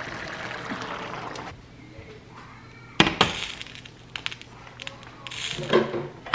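A steady hiss that cuts off about a second and a half in, then a heavy enamelled cast-iron pot set down with a sharp clank on a glass-top electric range about three seconds in. Smaller knocks and a clatter of utensils follow near the end.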